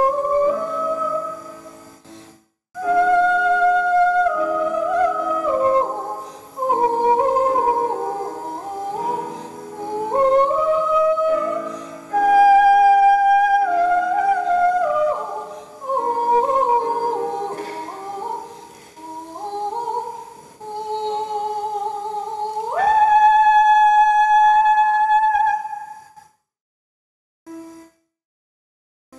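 Female solo singer performing a melodic song to grand piano accompaniment. About 23 seconds in she leaps up to a long held high note, which ends about three seconds before the music stops.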